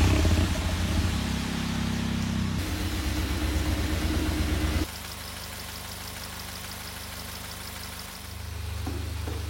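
An engine idling steadily. It runs louder for about the first five seconds, drops suddenly to a quieter idle, then picks up again near the end.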